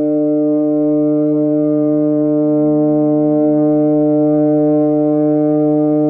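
Instrument washer hum: one steady low-pitched drone with a stack of overtones, unchanging in pitch and level.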